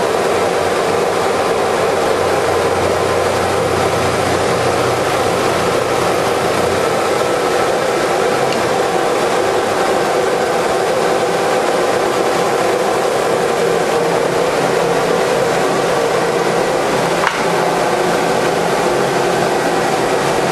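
Hydraulic copy lathe running steadily, a dense machine noise with several steady tones. A low hum drops out about seven seconds in, and there is a single short click near the end.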